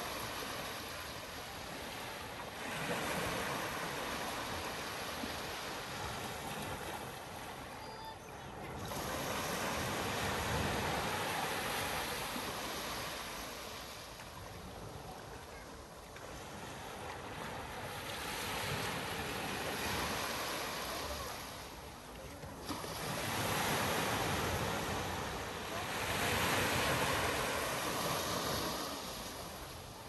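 Ocean surf breaking on a sandy beach, the wash swelling and fading with each wave every several seconds.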